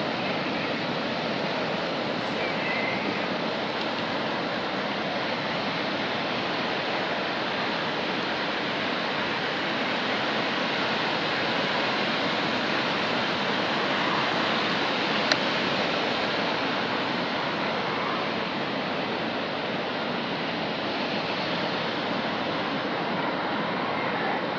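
Water rushing through a dam's spillway gates into the river below: a steady, unbroken rush of white water. A single brief tick comes about fifteen seconds in.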